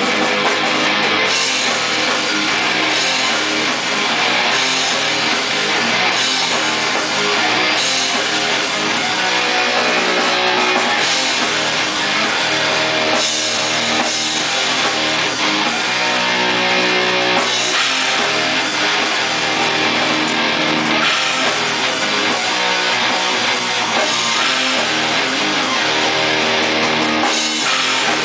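Heavy metal band playing live: electric guitars over a drum kit, with no singing.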